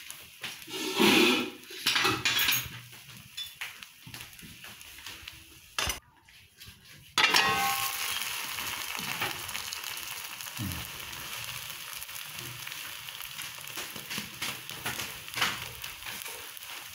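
Egg omelet frying in a non-stick pan. About a second in, a spatula scrapes and clatters against the pan. After a brief lull, loud sizzling starts suddenly about seven seconds in, as the omelet is laid on its raw side after being turned, and settles into steady sizzling with a few small scrapes.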